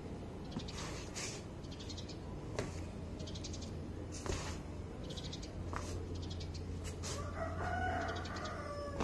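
A rooster crows once near the end, one long call that falls at its close. Short high trills repeat about once a second over a steady low hum.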